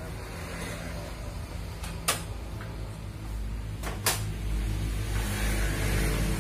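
Two sharp plastic clacks about two seconds apart as the Kyocera M2040dn laser printer's covers are handled, over a steady low hum, with a rustle near the end.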